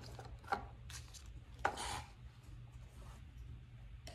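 Hands handling small unboxed drone accessories on a tabletop: a few light taps as items are set down, and a sharper tap with a short crinkle of plastic bagging a little under two seconds in.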